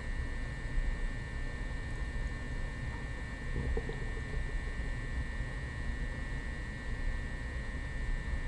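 Upset stomach rumbling low and faintly, heard from a short distance, with a brief gurgle about three and a half seconds in. A steady electrical hum and hiss runs underneath.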